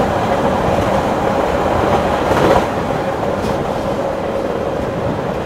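Running noise inside a moving Berner Oberland Bahn electric train: a steady rumble of wheels on rail with a faint steady hum. It swells to a louder rush for a moment about two and a half seconds in.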